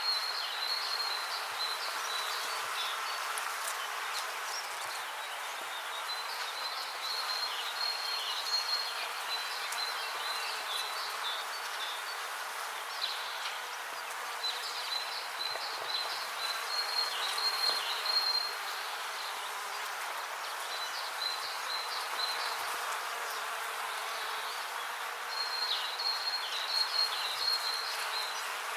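Bees buzzing in a steady, continuous hum. High, repeated chirping comes and goes in bouts over it.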